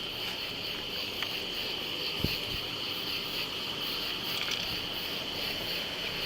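Steady background hiss with a constant high-pitched band, and two faint clicks about one and two seconds in.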